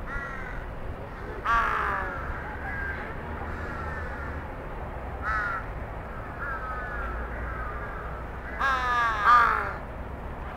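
Large-billed crows cawing: a run of short falling caws, with louder caws about a second and a half in and about five seconds in, and a loud cluster of caws near the end.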